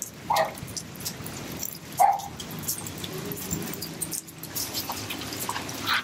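Labrador retriever giving two short barks, about a second and a half apart.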